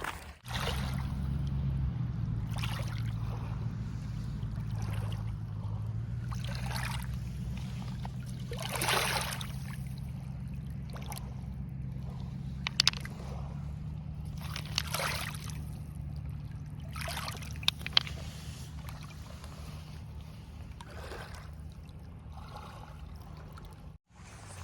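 Small waves lapping and washing onto a stony Lake Huron shore, swelling every few seconds, over a steady low rumble, with a few sharp clicks about halfway through.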